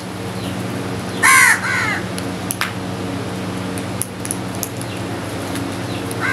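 House crows cawing: a loud harsh caw about a second in, quickly followed by a second, then a fainter call and another caw near the end.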